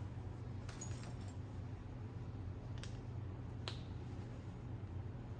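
Quiet handling of a plastic drill bit set case and its packaging: a few light ticks about a second in, then two sharp clicks near the middle, over a steady low hum.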